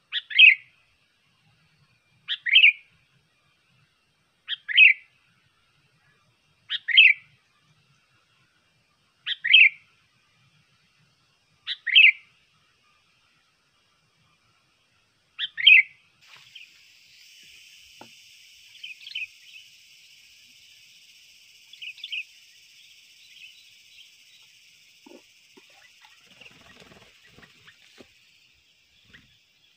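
Sooty-headed bulbul (kutilang) giving a loud, short, repeated call, seven times at about two-second intervals. About halfway through, the loud calls stop and fainter bird calls continue over a steady high hiss, with a few faint knocks near the end.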